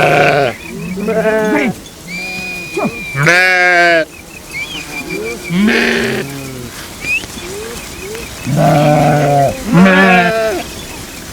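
A flock of sheep bleating, with about six loud, quavering bleats from different animals overlapping and following one another.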